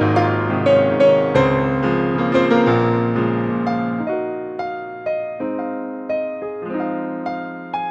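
Piano played with the sustain pedal: deep bass octaves and chords ringing under a melody, then thinning to lighter, softer notes about halfway through.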